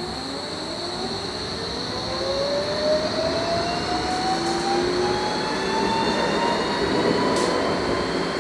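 Interior of a Bombardier Flexity Berlin tram accelerating: the electric traction drive gives a whine of several tones rising together in pitch over rolling noise, growing louder over the first few seconds. A steady high whine runs underneath.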